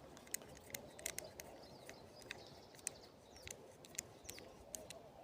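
Faint, irregular small clicks and ticks of a screw being turned by hand to fasten the backstock to an Artemis CP2 CO2 air rifle, with faint bird chirps in the background.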